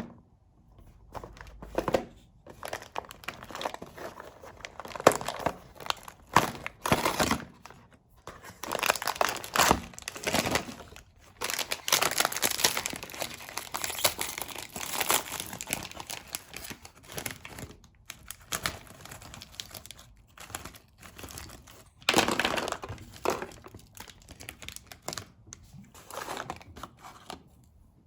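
Plastic packaging crinkling and tearing in irregular bursts as it is handled.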